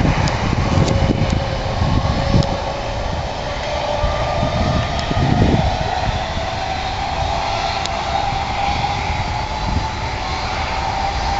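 Jet airliner engines running, a whine slowly rising in pitch over a low, gusty rumble.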